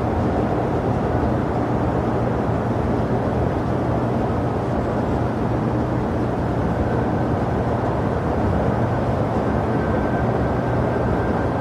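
Steady rumble of jet aircraft engines at an airport, with a constant low hum and a faint high whine that comes in about halfway through.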